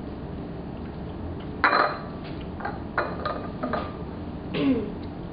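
Dishes and cutlery clinking and knocking a few times as food is handled, the loudest knock about a second and a half in, over steady low background noise.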